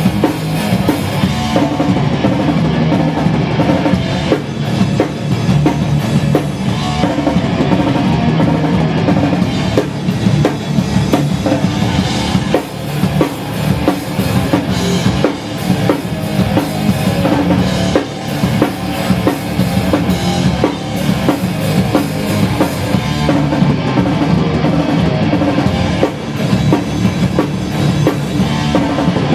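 Hardcore punk band playing loud and dense, with the drum kit's bass drum and snare hitting hard throughout.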